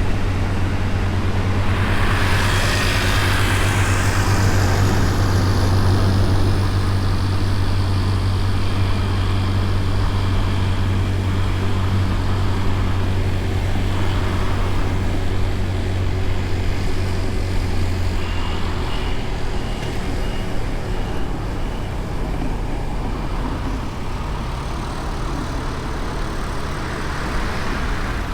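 Honda Beat scooter's small single-cylinder engine running steadily under way, with road and wind noise. A few seconds in, another vehicle passes with a rush of noise, and about two-thirds of the way through the engine note shifts lower.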